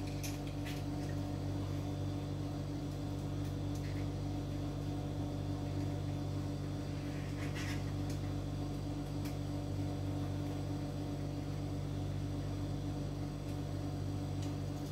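Steady low hum, with a few faint light clicks as a small cooling fan and a plastic case lid are handled.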